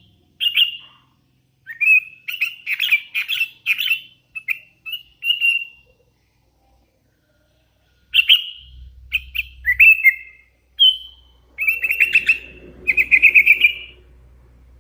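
Young hand-fed sooty-headed bulbul (kutilang) calling in quick runs of short, clear chirps and trills. The calling breaks off briefly midway, then resumes with a fast rattling series near the end.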